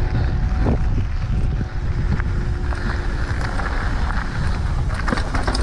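Wind buffeting the microphone as a Specialized Enduro mountain bike rolls down a dirt trail, with a steady low rumble and scattered clicks and rattles from the tyres and bike over rough ground.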